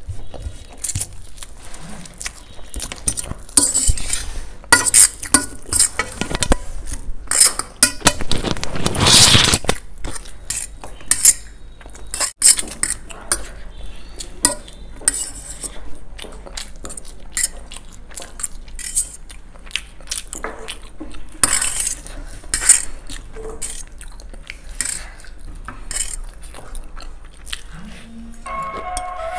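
Eating sounds of a noodle mukbang: metal forks clinking and scraping on stainless steel plates, with chewing and slurping of noodles, in many short clicks and one longer noisy stretch about nine seconds in.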